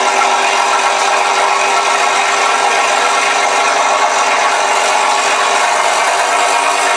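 Recorded Rolls-Royce Merlin piston-engine sound from an RC sound module, played through the P-51 Mustang model's onboard speakers and running steadily.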